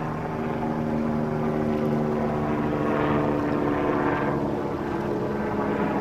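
An engine drones steadily, a hum of several pitched tones, shifting slightly in pitch about five seconds in.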